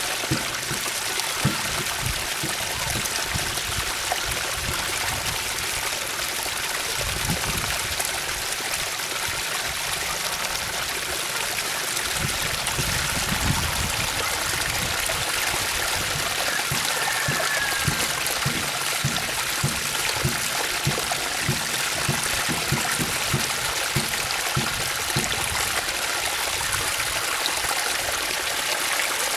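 Water running steadily down a narrow channel cut in a mud bank and pouring into a woven fish trap, splashing without a break.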